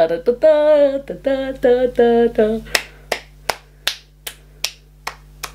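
A woman sings a few short notes while snapping her fingers, then keeps snapping on her own in a steady beat of about two and a half snaps a second.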